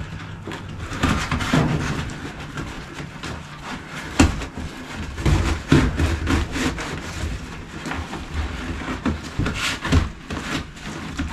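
Flexible aluminium foil dryer vent duct crinkling and rustling as it is worked onto a metal vent pipe, with scattered clicks and knocks; the sharpest knock comes about four seconds in.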